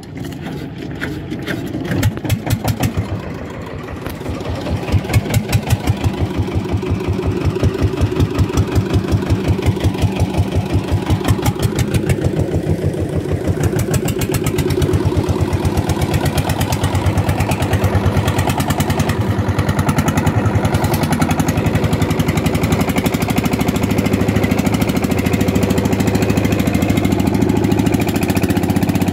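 Tianli 30 hp single-cylinder diesel inboard engine of a wooden pompong boat running under way, its beats pulsing unevenly at first, then growing faster, louder and steadier from about halfway through.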